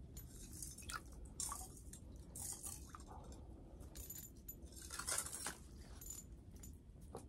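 Faint rustling of clothing and gear with scattered light clicks and clinks, a few slightly louder about halfway through.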